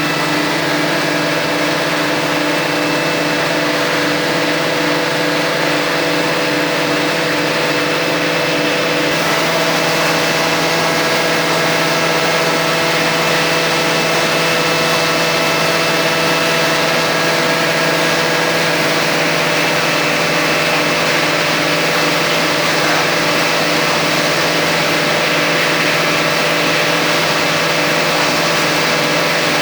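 Rotary veneer-peeling lathe running steadily in a plywood mill: a loud, even machine drone made of several steady hum tones under a hiss, which grows a little brighter about nine seconds in.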